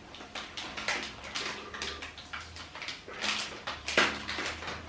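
Handling noise: irregular rustling and small clicks and knocks as electronics parts and their packaging are picked up and moved about.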